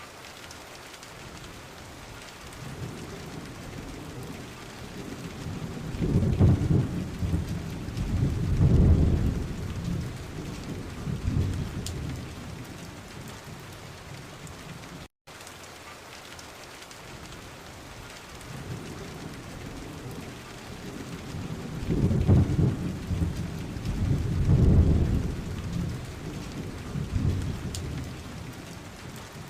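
Steady rain with thunder rolling twice, each roll a deep rumble lasting several seconds that swells and fades back into the rain.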